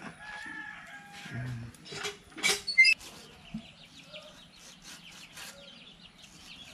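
Chickens clucking, with one loud squawk about two and a half seconds in. Under it, a knife scrapes a fish on a wooden block with a fine, steady scratching.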